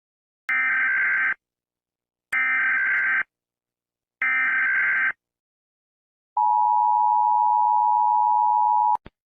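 Emergency Alert System header: three one-second bursts of SAME digital data tones, then the steady two-tone EAS attention signal held for about two and a half seconds, cutting off with a brief click.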